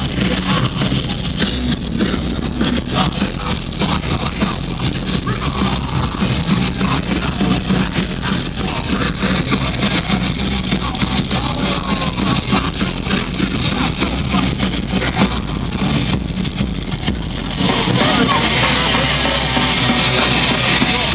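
Live heavy rock band playing loud through the main-stage PA, heard from inside the festival crowd. The sound thickens and gets a little louder about three-quarters of the way in.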